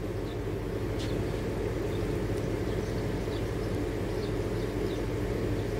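Steady low mechanical hum, like an engine or machine running, with a faint click about a second in.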